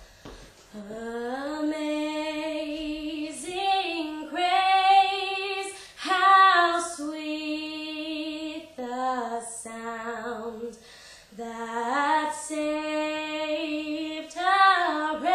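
A woman singing solo and unaccompanied, in several phrases of long held notes with a slight vibrato and short breaths between them.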